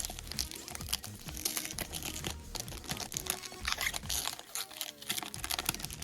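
Trading cards being handled: light rapid clicks and crinkling rustles of plastic card sleeves and foil pack wrappers.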